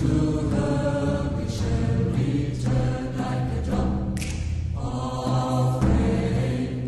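Chant sung by a group of voices, with a few drum beats.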